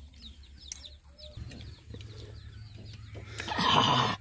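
Chickens and small birds calling, with short high chirps repeating throughout, then a loud harsh burst of sound lasting under a second near the end.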